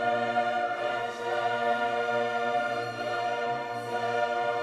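Background music: one long held chord that sounds steadily with no breaks.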